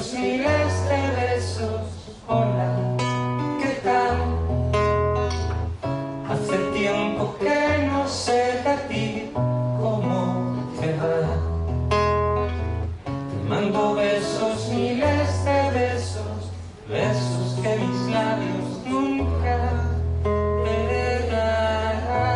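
A live song on nylon-string acoustic guitar: plucked chords over bass notes that change every second or two, with a man's voice singing at times.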